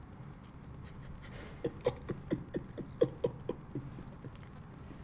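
A man with a mouthful of banana making a quick run of about ten short mouth sounds, roughly five a second, that fade away; before them only faint background.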